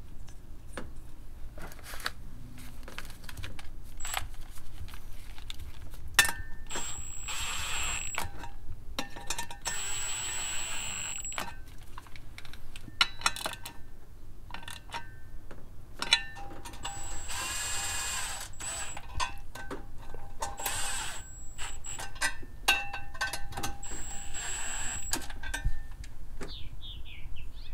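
Milwaukee cordless impact wrench running in several short bursts with a high motor whine, driving nuts onto the bolts that hold a vacuum canister to its bracket. Between the runs, metal clicks and clinks from the nuts, bolts and socket being handled.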